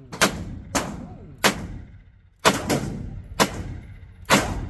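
About six .357 Magnum revolver shots fired one at a time at an uneven pace, each a sharp crack with a short echoing tail.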